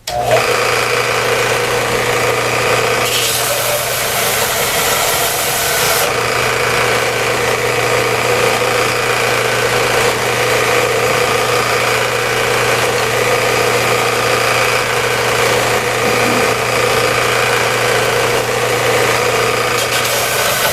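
Electric shop machine switched on and running steadily with a constant motor hum, a harsher hiss joining in from about three to six seconds in and again near the end.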